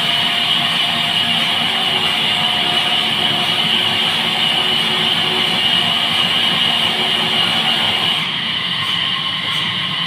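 Horizontal band sawmill running, its blade cutting through a squared timber block: a steady high hiss over the machine's hum. About eight seconds in, the sound drops a little and the hiss thins.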